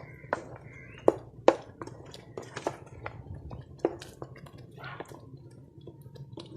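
Chicken curry gravy boiling in a pot, thick bubbles popping at irregular intervals over a low steady hum.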